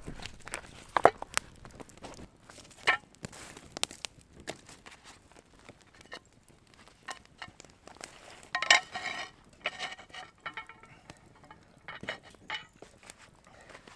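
Stone on stone: rocks and a flat slate slab clinking and knocking against the rocks of a fire ring as they are set in place, with a louder ringing clatter a little past halfway as the slate is laid across the fire. Light crackling of the wood fire runs between the knocks.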